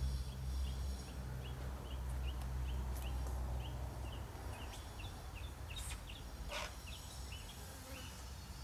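A bird calling in a long series of short, high chirps, about three a second, over a steady low rumble. Two brief rustling noises come about six seconds in.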